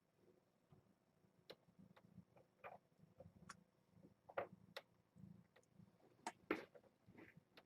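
Faint, irregular clicks and light taps, a dozen or so at uneven spacing, the two loudest about four and a half and six and a half seconds in.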